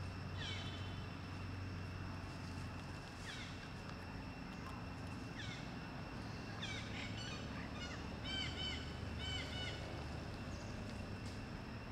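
High-pitched animal squeaks that come every second or two, then a quick run of repeated arched chirps about two-thirds of the way in, over a steady outdoor hum.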